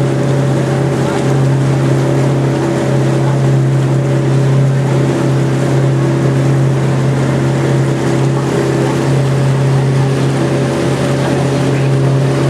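Boat engine running steadily at cruising speed, heard on board as a constant low hum with a rushing hiss over it.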